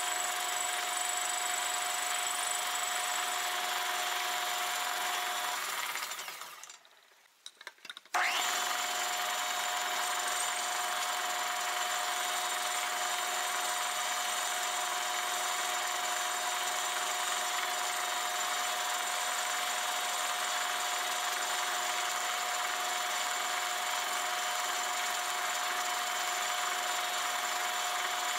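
Metal lathe turning a large cast workpiece, the tool cutting with a steady hiss over a steady tone from the machine. About six seconds in the sound fades almost away, then comes back abruptly about two seconds later.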